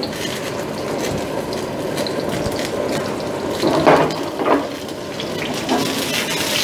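Floured salmon escalope sizzling as it fries in hot olive oil in a frying pan on a gas burner. Twice, about four seconds in, the sound briefly grows louder as the pan is moved by its handle.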